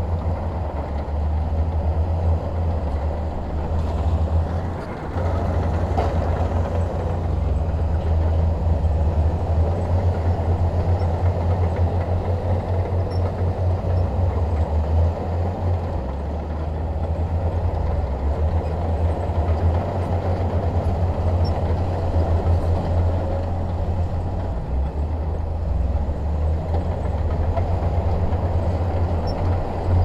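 Heavy diesel engine of earthmoving machinery running steadily, a deep drone with a brief dip about five seconds in.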